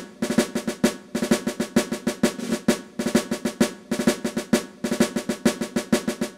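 Intro music played on drums: rapid strokes and rolls in short phrases with brief breaks, stopping just before the end.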